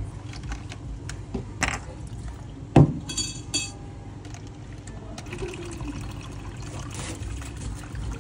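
Drinks being poured into plastic cups: juice and tea splashing in. About three seconds in comes a single sharp knock, the loudest sound, followed by two short high-pitched rattles.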